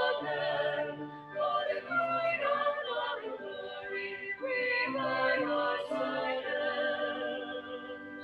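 A small group of men and women singing a hymn together in harmony without instruments, in held phrases with short breaks between them.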